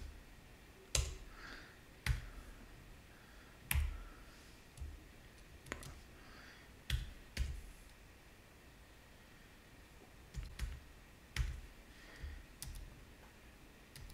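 Keys on a computer keyboard pressed one at a time: a dozen or so separate clicks, each with a soft thud, spaced irregularly, with a pause of about three seconds in the middle.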